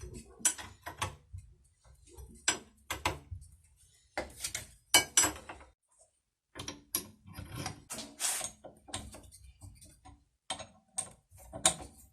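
Irregular clicks, knocks and clinks of hand work with tools and metal parts, some strikes ringing briefly. The sound drops out completely for about half a second around six seconds in.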